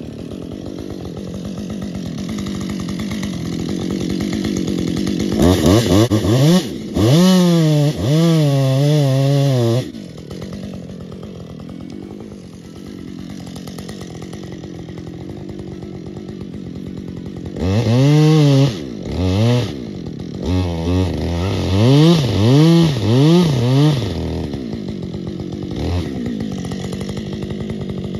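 Husqvarna two-stroke chainsaw idling and then run up to full throttle in bursts, its pitch wavering under load as it cuts into the wood. It drops back to idle between the cuts: one long run-up about a third of the way in, and several shorter ones in the second half.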